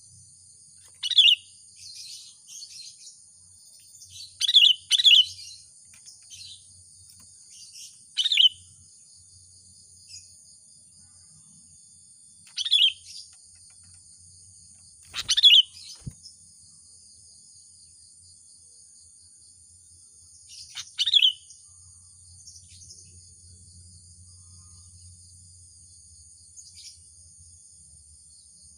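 Sooty-headed bulbul giving short, loud calls, about seven of them spaced irregularly, as it calls to a rival. A steady high-pitched insect buzz runs underneath.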